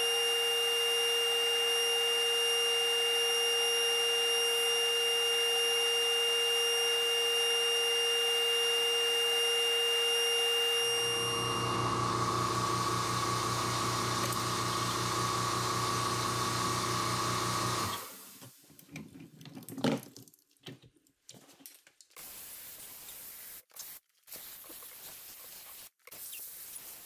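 Shop machinery runs steadily with a constant whine. About eleven seconds in it changes to a lower hum, which cuts off abruptly a few seconds later. Scattered clicks and clinks of handled tools and metal follow.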